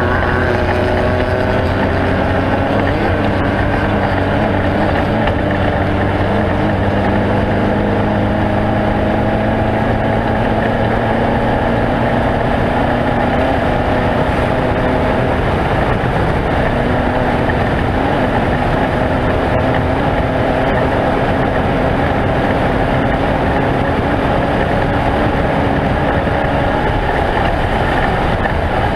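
Off-road race vehicle's engine running hard and steadily, its pitch drifting slowly up and down, under a constant wash of wind and terrain noise.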